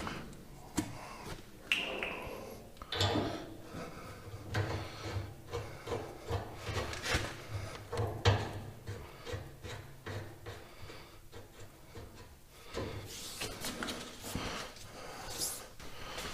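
Hydraulic hoses and their fittings being handled and connected by hand: scattered light clicks, knocks and rubbing.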